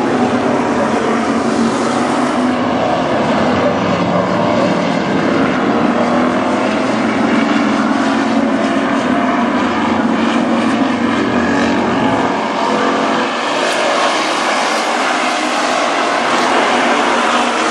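V8 engines of several WISSOTA Street Stock dirt-track race cars running hard at racing speed. The sound is loud and continuous, swelling and easing as the cars pass.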